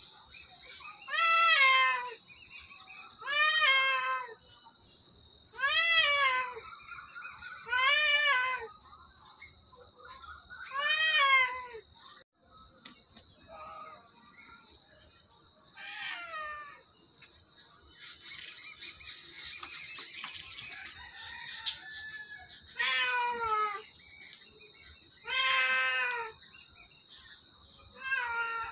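An orange-and-white cat meowing over and over, about one meow every two seconds, each meow rising and then falling in pitch. The meows grow fainter around the middle and come loud again near the end.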